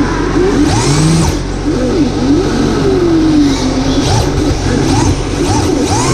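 Electric motors of RC drift cars whining, the pitch rising and falling again and again as the throttle is worked.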